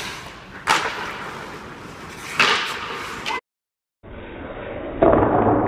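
Sharp cracks of ice hockey stick-and-puck impacts echoing in an ice rink, two of them about two seconds apart. The sound cuts out briefly, then a duller, louder thud follows near the end.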